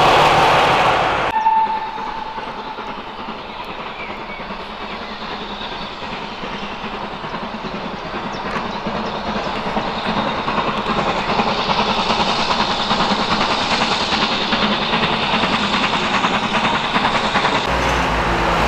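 A train's locomotive passing close by is cut off about a second in. It is followed by BR Standard Class 4 tank steam locomotive 80097 running towards the listener along the line, its sound growing louder over several seconds and then holding steady.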